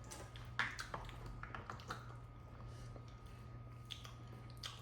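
Faint, scattered clicks of someone chewing panipuri, over a steady low hum.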